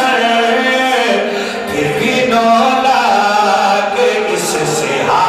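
A man's amplified voice chanting in a melodic, sung style, drawing out long held notes, as in a zakir's recited devotional verse.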